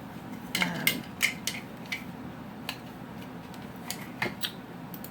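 Hard plastic bed sheet fastener pieces clicking and knocking as they are handled, about nine irregular sharp clicks, the loudest in the first second and a half.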